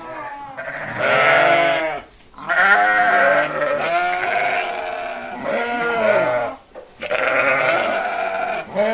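Goats bleating: a string of loud, wavering bleats, about half a dozen calls of up to a second and a half each, some overlapping with little pause between them.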